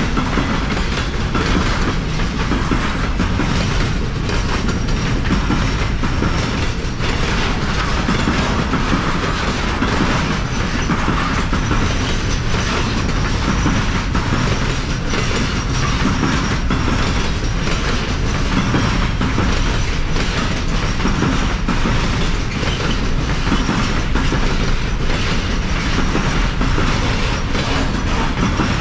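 Freight train rolling past at close range, its wagon wheels clattering over the rail joints in a steady run of clicks.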